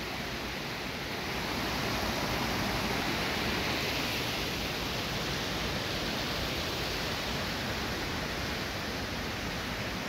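Steady rushing of water spilling over a small cascade into a pool, growing a little louder about a second and a half in.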